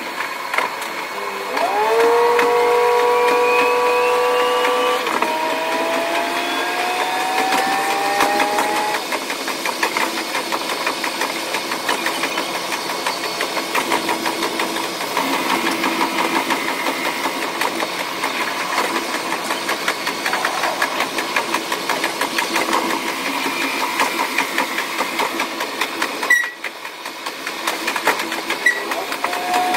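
KiHa 185 series diesel railcar running, its sound sped up about six times: the engine note rises in steps as the train accelerates over the first several seconds, then gives way to a dense steady running sound with fast clicking. A sharp click and a short drop in level come near the end.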